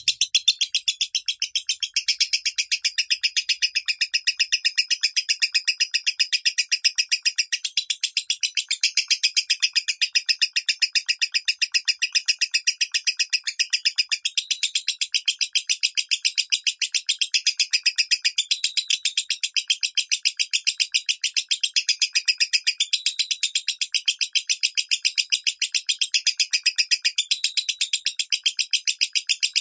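Lovebird giving its high 'minor' call as a fast, unbroken run of chirps, about five a second, steady in pitch and level.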